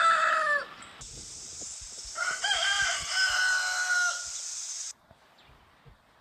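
Rooster crowing: the tail of one crow at the start, then a full cock-a-doodle-doo about two seconds in, lasting about two seconds. A steady high hiss sits behind the second crow and cuts off about five seconds in.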